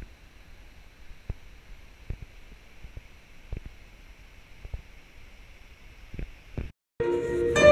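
Faint outdoor ambience: a low steady hiss with scattered soft thumps and clicks. It cuts out briefly near the end, and then a live jazz orchestra starts playing.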